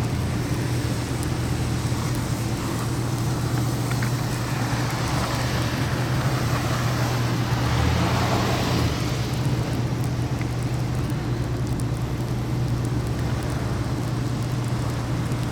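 Car driving on a snow-covered road: steady engine and tyre noise with a constant low hum, swelling briefly about eight seconds in.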